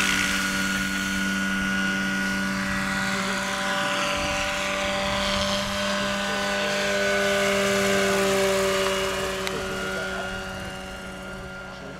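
Electric-powered RC scale helicopter, a Lockheed XH-51N model with a 2 m rotor, flying past with a steady pitched hum from its electric drive over the whir of its rotors. It grows fainter near the end as it flies away.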